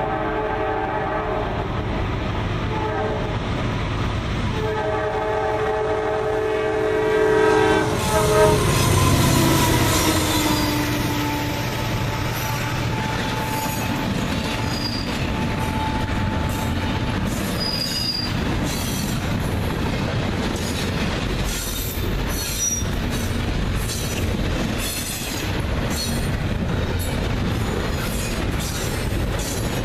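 A freight train's locomotive air horn sounds in two blasts as it approaches the grade crossing. The locomotive then passes with a low rumble, followed by the freight cars rolling by, their wheels clacking rapidly over the rail joints with intermittent high-pitched flange squeal.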